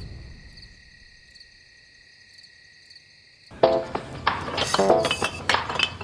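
Crickets chirping steadily and faintly; then, about three and a half seconds in, empty glass wine bottles clink and knock against each other in a cardboard box as one is pulled out, with short ringing glass tones.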